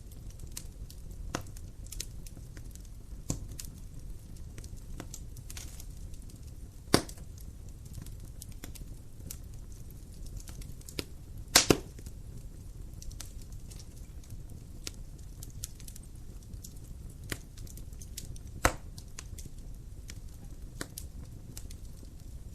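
Dry firewood burning in a fireplace: a steady low rumble of flame with frequent small crackles and a few loud sharp pops, the loudest a double pop near the middle.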